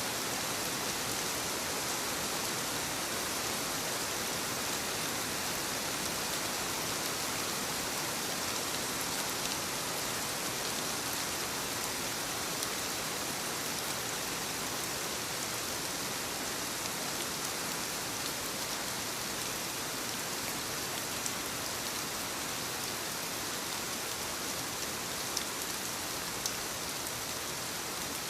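Steady rainfall, an even hiss of rain with a few separate drops standing out now and then.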